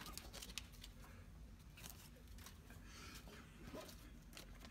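Near silence in a small room, broken by a few faint rustles and soft clicks of paper dollar bills being laid on a bed.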